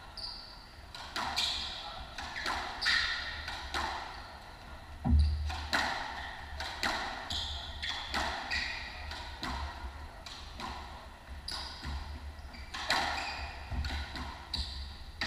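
Squash rally: the hard rubber ball smacking off racket strings and the court walls every second or so, with sneakers squeaking on the hardwood floor. A heavy thud about five seconds in is the loudest hit.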